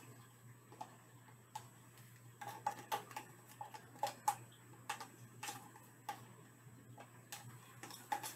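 Irregular light clicks and taps of plastic paint cups being handled, thickest from a third of the way in to about two thirds through, over a faint steady low hum.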